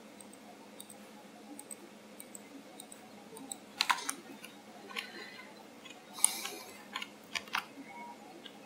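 Computer keyboard keys and mouse buttons clicking irregularly while working in 3D software, with a few louder clusters of keystrokes about four seconds in and again between six and seven and a half seconds.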